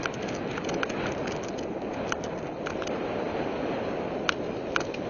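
Mountain bike ridden over a rough trail: steady rushing tyre and wind noise with irregular sharp metallic clicks and rattles from the bike, most of them in the first three seconds and two louder clicks near the end.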